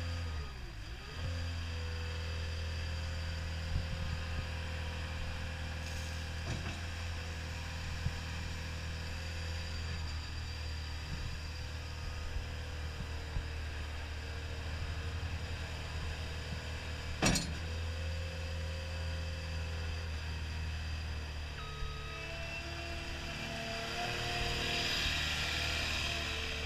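CAT 236D skid steer loader's diesel engine running steadily, with its speed dropping in the first second. A single sharp knock comes about 17 seconds in.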